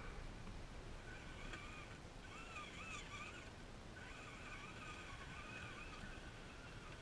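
RC4WD Gelande II Defender scale RC crawler's electric motor and gears whining faintly, the pitch rising and falling with the throttle as it crawls over rough ground. The whine stops briefly twice, near the two-second and three-and-a-half-second marks.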